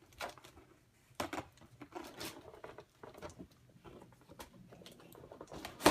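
Toy packaging being handled and opened: scattered rustles, scrapes and small clicks, with a louder rustle at the very end.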